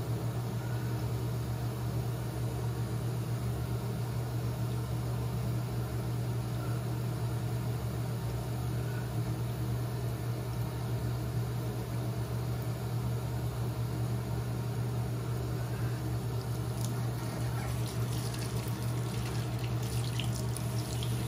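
Water running steadily from a bathroom tap into the sink, with a low hum under it. Near the end come a few light splashes as hands go into the water.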